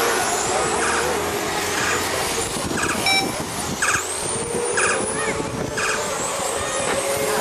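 Electric radio-controlled GT cars racing on an asphalt track: a steady hiss of motors and tyres, with high whines rising and falling as cars pass. Short chirps repeat about once a second over it.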